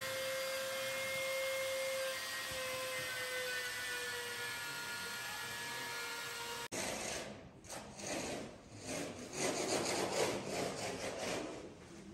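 Handheld electric power tool running against ice as a carver shapes a block: a steady grinding whine that sags slightly in pitch, cut off suddenly about two-thirds of the way in. Irregular rasping bursts follow.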